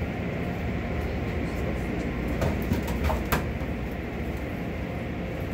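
Belanger car wash tunnel equipment running, heard through the viewing window's glass: a steady rumble of brush motors and spraying water, with a few sharp clicks near the middle.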